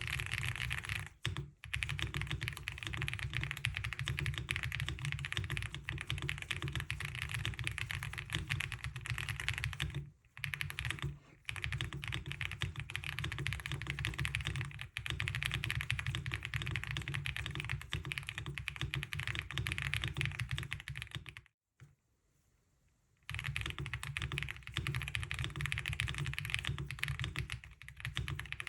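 Fast, continuous typing on a MonsGeek (Akko) M1 V5 mechanical keyboard: a dense stream of key clacks. It breaks off briefly about a second in and around ten seconds in, and pauses for about two seconds a little past the twenty-second mark.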